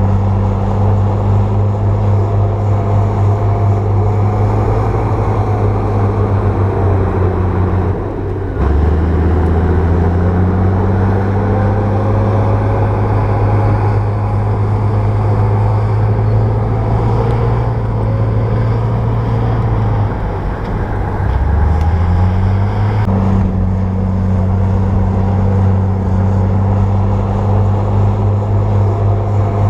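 Bulldozer's diesel engine running steadily with a deep hum. Its pitch drops sharply twice, about eight seconds in and again about twenty seconds in, and each time climbs back up.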